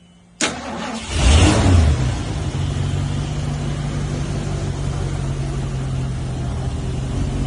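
Car engine cranked by its starter and firing up about half a second in, flaring up briefly in revs, then settling to a steady idle. The engine is being started on a boost from a portable lithium jump starter clamped to a weak battery.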